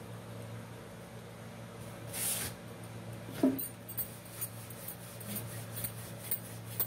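Wooden rolling pin rolling out corn-flour (makki) paratha dough, with a sharp knock about three and a half seconds in and then light taps and clicks two or three times a second. A brief rustling hiss comes about two seconds in, and a steady low hum runs underneath.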